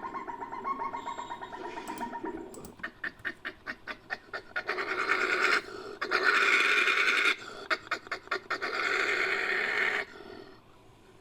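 Made-up creature call edited from Asian civet and badger recordings. A rapid rattling growl leads into a run of quick huffs, then loud breathy hisses broken by more huffs, and it stops about ten seconds in.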